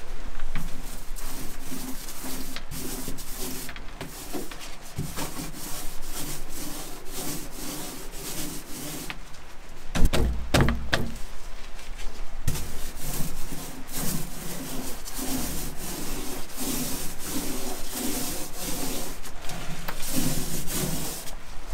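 Small paint roller rolling thick enamel bilge paint across a cabinet panel in repeated back-and-forth strokes, a sticky rubbing sound. A single knock about ten seconds in.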